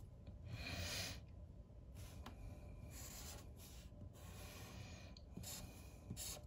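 A marker rubbing across a scratch-off lottery ticket in a few faint short strokes, crossing out letters on the crossword grid.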